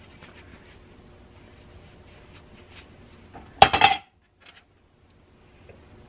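Light handling noises of small parts, then about three and a half seconds in a brief clatter of small metal pieces clinking against a hard surface, several quick strikes in about half a second.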